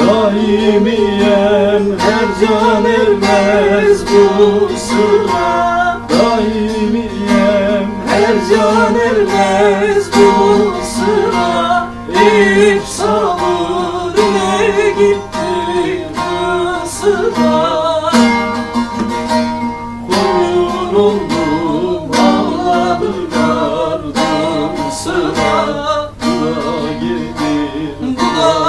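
Music: a Turkish song with a plucked string instrument and a wavering, ornamented sung melody.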